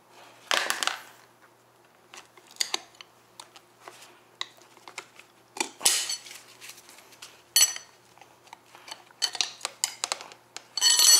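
Metal tire tools clinking and scraping against an electric scooter's 10-inch wheel rim as the tight tire is levered over it. The strikes are scattered and separate, a few ring briefly, and the loudest come near the end.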